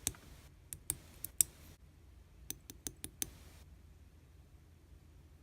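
A series of sharp, light clicks or taps: four spread over the first second and a half, the loudest of them about one and a half seconds in, then a quick run of five about a second later. After that there is only faint hiss.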